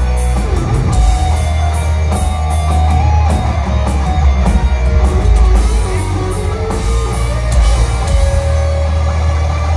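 A heavy metal band playing live at high volume: distorted electric guitars with sliding notes over bass and a drum kit with steady cymbal hits.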